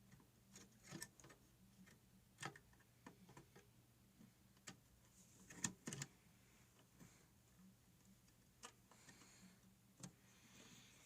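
Faint, scattered clicks and taps of hands working inside a desktop PC case, handling wires and memory modules at the motherboard's RAM slots, with a sharper pair of clicks about six seconds in. A faint steady low hum sits underneath.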